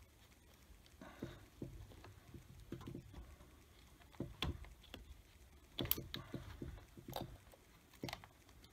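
Faint, irregular clicks and taps of a screwdriver and gloved hands working a plastic coil-on-plug electrical connector and its wiring harness.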